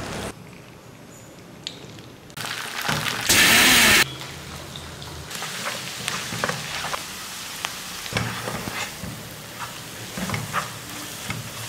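Onions and curry leaves frying in hot oil in a non-stick kadai, sizzling, with a wooden spatula stirring and scraping the pan in light clicks. About three seconds in the sizzle swells to a loud burst lasting under a second, then settles back.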